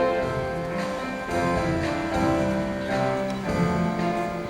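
Instrumental accompaniment of a pop ballad playing on its own between sung lines, with held chords that change about once a second.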